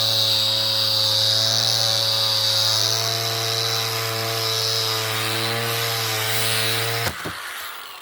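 Angle grinder with a hook-and-loop sanding pad running steadily with a high whine while sanding wooden fence pickets. About seven seconds in the tool cuts off suddenly with a knock.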